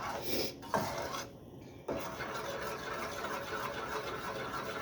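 Spoon stirring and scraping around the bottom of a saucepan of melting butter. The scraping becomes steady from about two seconds in.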